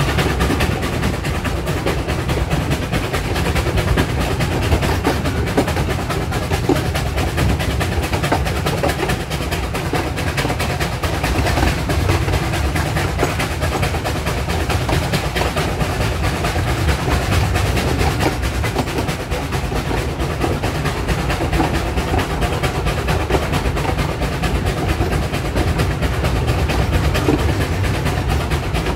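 Narrow-gauge steam locomotive running close by, its exhaust beats and the clatter of wheels on rail making a steady, rapid, percussive rhythm.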